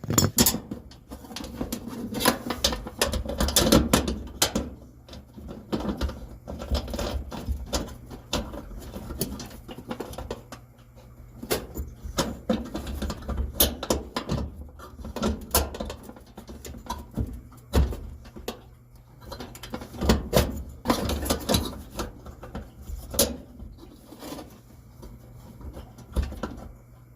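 Irregular clinks, knocks and rattles of metal parts and tools being handled while the replacement idler pulley is fitted inside a clothes dryer, over a faint steady low hum.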